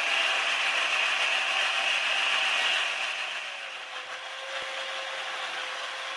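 Electric drill spinning a wire cup brush against the top deck of a Briggs & Stratton 5 hp flathead engine block, scrubbing off corrosion and carbon buildup: a steady motor whine under a hissing scrape, which gets quieter about three seconds in.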